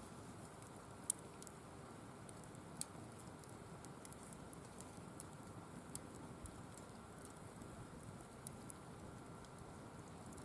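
Firewood burning in a wire-mesh fire pit: a faint steady rush of flames with scattered crackles and sharp pops, the loudest about a second in and just under three seconds in.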